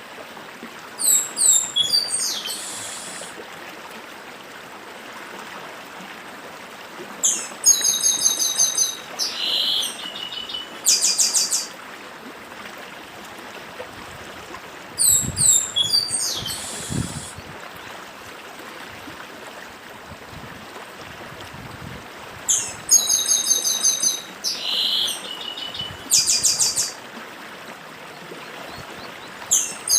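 Chestnut-capped blackbird (papa-arroz) singing its 'dedim' song in four phrases, about seven seconds apart, each a fast run of sharp repeated notes, over the steady rush of a stream.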